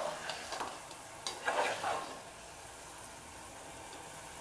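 A spoon stirring soaked chana dal and chopped ridge gourd in a metal pot, with several scrapes and clinks against the pot in the first two seconds. After that comes a steady sizzle of the vegetables cooking in oil.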